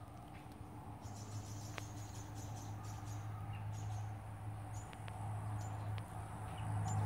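Outdoor garden ambience: a steady low hum under scattered short, high chirps and ticks from small creatures, growing a little louder near the end.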